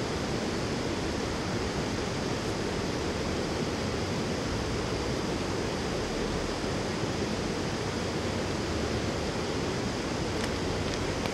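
Steady rushing of running river water, an even hiss that does not change.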